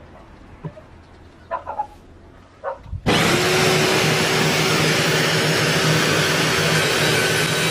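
A few light handling clicks and knocks, then about three seconds in an electric drill switches on and runs steadily at full speed with a loud whirr.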